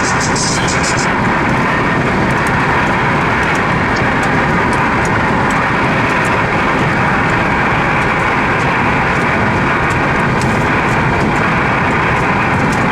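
Steady road and wind noise inside a car driving at speed, a loud even rush with a few faint ticks.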